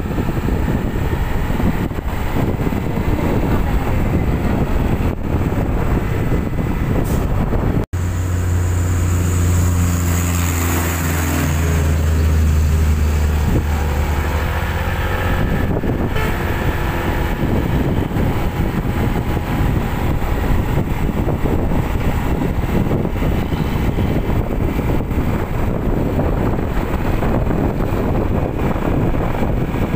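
Road traffic with heavy wind noise on the microphone. About eight seconds in, a large diesel truck engine runs close by with a deep, steady hum for about seven seconds, then fades back into the road noise.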